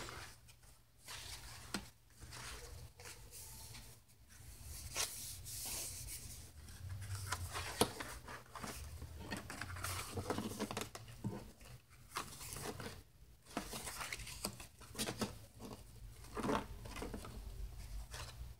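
Leaf-printed boiled-book paper pages being turned over and shuffled by hand: irregular rustles and soft flaps of stiff, dry paper.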